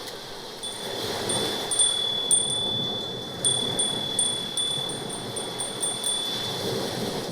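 Chime-like ringing played back through a small Bluetooth speaker, the Soundcore Select 4 Go: a steady high tone with light, repeated tinkling notes above it.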